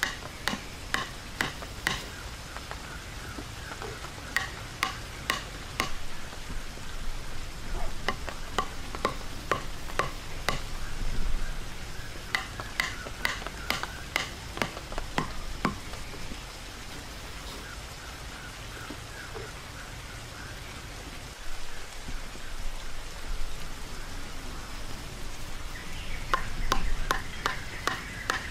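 Wooden stakes being pounded into the ground with a thick bamboo tube: runs of sharp knocks, with quieter stretches between the runs.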